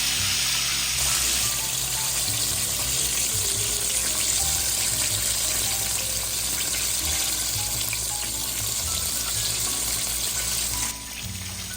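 Chicken frying in hot oil, a steady dense sizzle that drops off sharply near the end.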